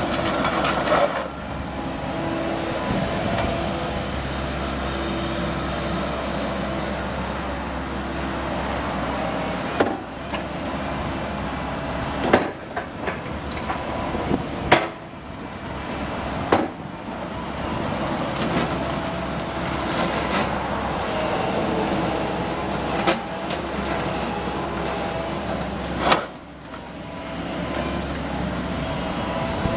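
Komatsu PC138 excavator's diesel engine running under changing hydraulic load as the boom, arm and bucket work. Several sharp clanks and knocks come through over it.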